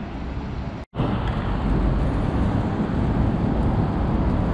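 Outdoor street noise: a steady low rumble of road traffic and wind, cutting out for a moment about a second in.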